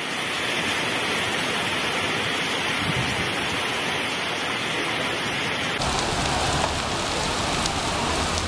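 Heavy rain pouring down, a steady dense hiss. About six seconds in it changes abruptly to rain and rushing floodwater on a street as cars drive through it.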